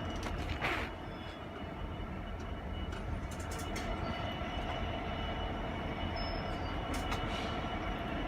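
Class 66 diesel-electric locomotive's two-stroke V12 engine idling steadily while the freight train stands waiting, with a few short clicks.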